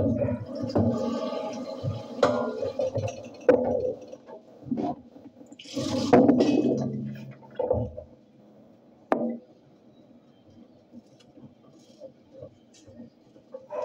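Dishes being washed by hand at a kitchen sink: water splashing from the tap and dishes knocking and clinking, with a louder rush of water about six seconds in. A single sharp clink follows near nine seconds, then it goes quieter.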